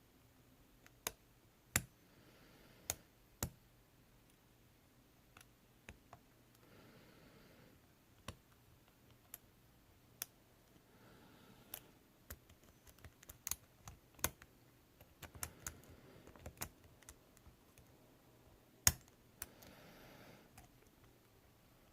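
Small, sharp, irregular metal clicks of a pick and tension wrench working the pin stack of an ASSA Ruko 2 padlock, the serrated pins and spools clicking as they are lifted but not yet setting. The clicks come in uneven clusters, with one louder click about 19 seconds in.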